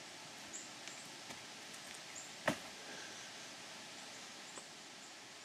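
Quiet woodland ambience with a steady hiss, a few faint ticks, and one sharp click about two and a half seconds in.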